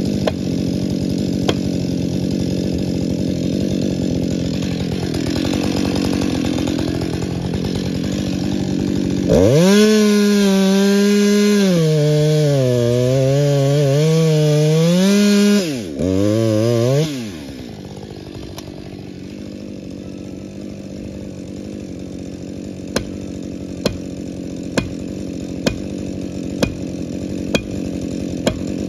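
Husqvarna two-stroke chainsaw cutting into a large spruce. About nine seconds in it is held at high revs for roughly eight seconds, its pitch sagging and recovering as the engine bogs under load in the cut, with a brief break before the revs fall away. Before and after, the saw's sound is duller and lower, and near the end there is a faint regular tick about once a second.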